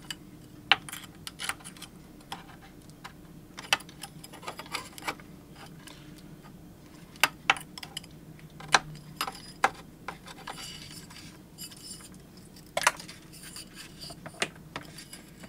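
Irregular light clicks and taps of a thin metal plate and RCA plugs knocking against each other and the turntable chassis while being handled, over a faint low hum.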